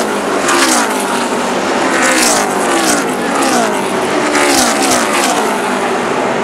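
NASCAR Sprint Cup stock cars racing past one after another at speed, their V8 engines dropping in pitch as each goes by, about one a second.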